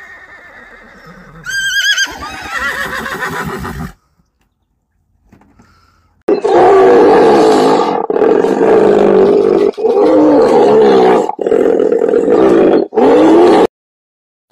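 A horse neighs with a quavering pitch. After a short silence, a hippopotamus calls loudly in about five long stretches, each cut off by a brief break.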